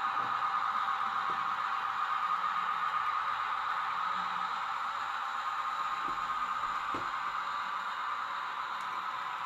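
Sound decoder of an N-scale Desiro DB model train playing a steady running sound through its tiny speaker, thin and hissy, with a few faint clicks.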